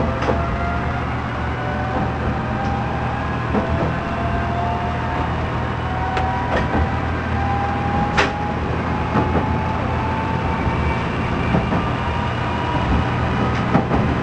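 Diesel railcar running on a small rural line, heard from the driver's cab: a steady engine drone under a whine that rises slowly in pitch as the car gathers speed, with a few sharp clicks from the track.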